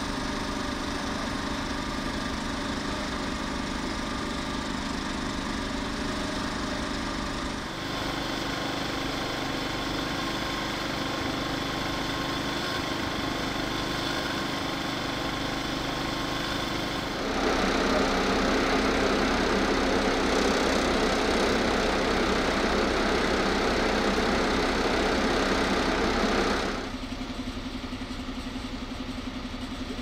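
Fire engines' engines running steadily at idle. The sound changes abruptly about 8 seconds in, then turns louder with a dense rushing noise from about 17 to 27 seconds before falling back to the steady engine note.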